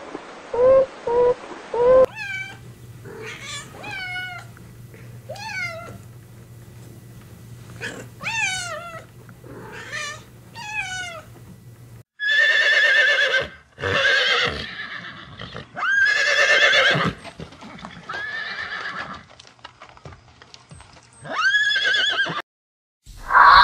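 Horses neighing loudly about five times from about halfway, each whinny lasting about a second. Before that comes a run of short, high, squeaky animal calls that fall in pitch.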